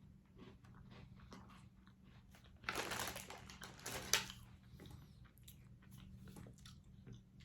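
A crunchy snack being bitten and chewed close to the microphone, a run of small crunches, with a louder, noisier stretch of crunching about three seconds in that peaks sharply about a second later.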